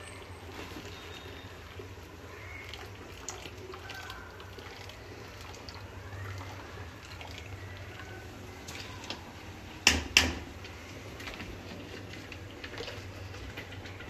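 Half-boiled basmati rice being scooped out of its boiling water with a plastic strainer, the water draining and splashing back into the pot. About ten seconds in come two sharp knocks in quick succession.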